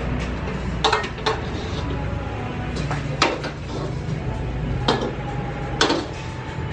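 A metal wok being taken down and set on a stove: about five sharp metallic clanks as it knocks against its hook and the burner, the ones around the middle and near the end the loudest. Under them runs a steady low hum.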